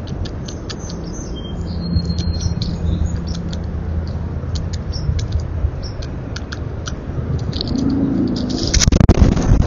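Outdoor ambience: many small, sharp clicks and a few brief high chirps over a steady low hum, with a loud, short rustling burst about nine seconds in.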